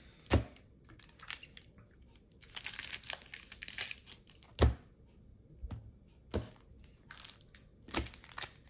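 Cellophane wrapper of a trading-card pack crinkling and tearing as it is handled and opened, with four sharp, soft knocks spread through.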